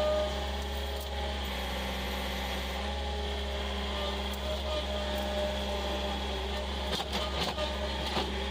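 Skid steer loader engine running steadily, heard from inside the cab, with a brief clatter near the end as the brush grapple works through cut brush.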